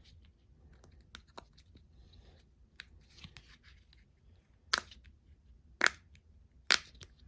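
Small silicone and plastic fidget toys being handled, with faint scattered clicks and rustles and three sharper clicks in the second half.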